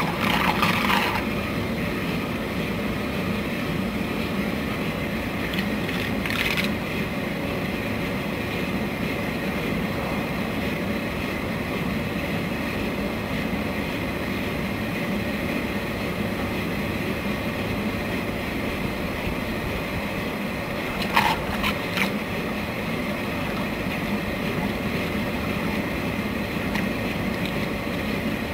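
Floating jet aerator running: its electric motor hums steadily while the submerged shaft and propeller churn air into the water in a continuous rush. Short sharper sounds cut in twice.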